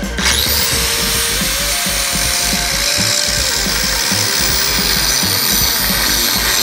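Porter-Cable PCE810 angle grinder switching on, its whine rising quickly to a steady high pitch, then running steadily with its wheel against the metal edge of a trailer.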